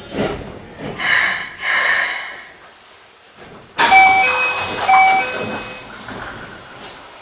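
Inside a Keikyu 600-series commuter train coming to a stop: two short bursts of air hiss, then about four seconds in the doors open with a sudden clunk and the door chime rings, its tones repeating.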